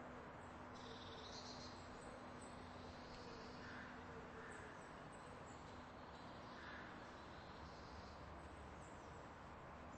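Near silence: faint steady background noise with a low hum and a few faint, short high chirps.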